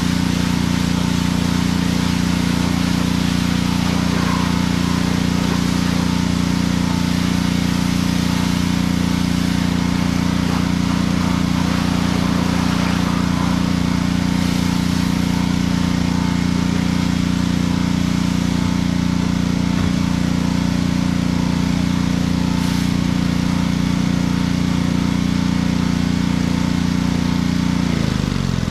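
Gas pressure washer running steadily, its small engine droning without let-up under the hiss of the water jet as the machine is sprayed down.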